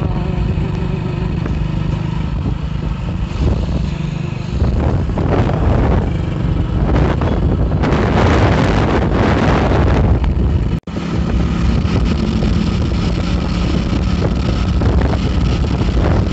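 Motorcycle engine running while riding, heard from the saddle, with wind buffeting the microphone in gusts that grow louder from about four and a half seconds in. The sound cuts out for an instant near eleven seconds.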